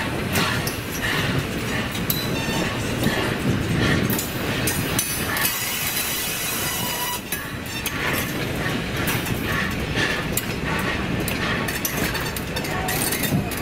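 A train's cars rolling along the track: steady wheel-on-rail noise with many irregular clicks.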